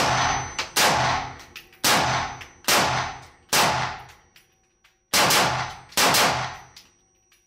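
LWRCI SIX8 Razorback rifle in 6.8 SPC fired semi-automatically: about eight shots at roughly one a second, with a short pause about halfway through. Each shot is a sharp crack followed by a long ringing echo.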